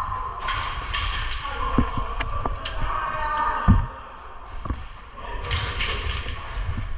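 Irregular thumps and sharp knocks, with one loud low thump a little past the middle, over faint distant voices.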